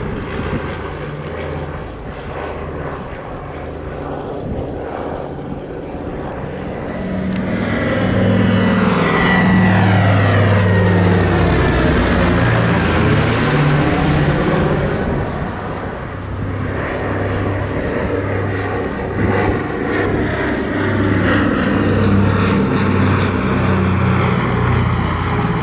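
Propeller-driven aircraft flying past with a steady engine drone. It grows loudest about a third of the way in, eases briefly past the middle, swells again, and starts to fade at the very end.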